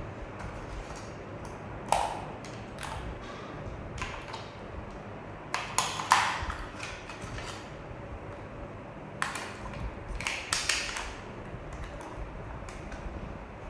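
Scattered clicks, taps and knocks of hard objects being handled, irregular, with the sharpest knocks about two seconds in, around six seconds in and twice near ten to eleven seconds in.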